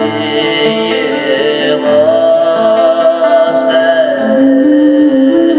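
A Tuvan group playing during a sound check: throat singing with plucked-string accompaniment. A steady drone sounds under a strong held melody note that slides down about four seconds in, then moves in short stepped notes.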